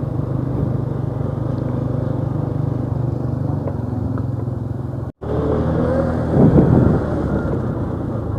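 Motorcycle engine running steadily while riding, with wind and road noise on a foam-covered helmet microphone. The sound cuts out for an instant about five seconds in, and there is a louder moment soon after.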